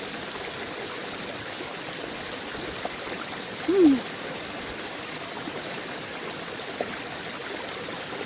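Steady rushing of a babbling brook and waterfall, with one short sound that falls in pitch about four seconds in.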